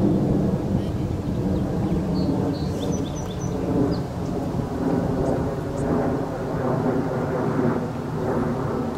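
Steady low rumble of wind buffeting the microphone, with a few faint high chirps about three seconds in.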